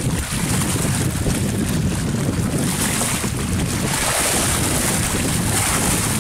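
Wind buffeting the microphone in a continuous, gusting rumble, over the wash of choppy river water.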